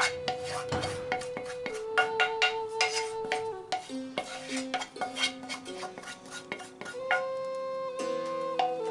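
Background music of held melodic notes, with a wooden spoon tapping and scraping against a frying pan as sauce is scraped out into a bowl.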